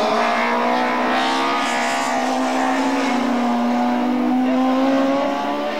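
Group 5 BMW race car's M12/7 two-litre four-cylinder engine running hard at high revs, its pitch holding nearly steady throughout.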